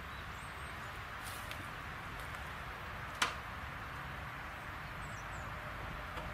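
Steady outdoor background noise with a few faint high chirps and a single sharp click about three seconds in.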